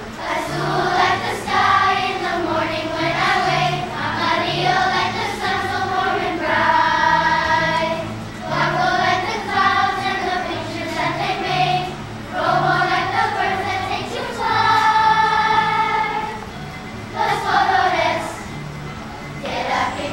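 Children's choir singing a song together, with two long held notes, one about a third of the way in and another past the middle.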